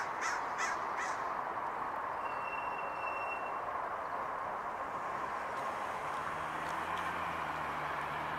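Steady hum of street traffic, with a car's engine growing plainer in the second half. In the first second there are four short harsh sounds in quick succession, and around three seconds in a brief thin whistle-like tone.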